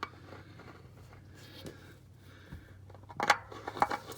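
A new spin-on oil filter being lined up and threaded onto its mount by hand: faint scraping and handling noises, then two sharp clicks a little over three seconds in.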